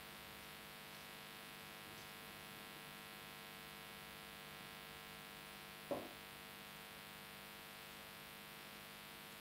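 Steady low electrical mains hum with a stack of evenly spaced steady tones, from the recording or sound system, and a single short knock about six seconds in.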